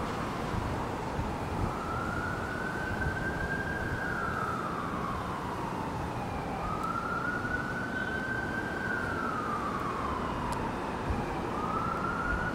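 Emergency vehicle siren in a slow wail, its pitch rising, holding and falling about every four seconds, over the steady noise of city traffic.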